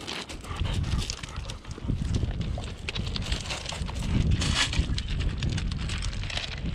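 A dog moving about on a loose pebble beach, the stones clacking and crunching under its paws and a person's sandals, with the dog's snuffling breath close to the microphone as it sniffs at a cast net.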